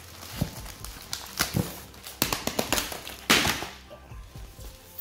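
Packing tape being ripped off the polystyrene foam blocks around a plastic-wrapped armrest, with rustling and small knocks. The loudest moment is a longer tearing rasp a little over three seconds in.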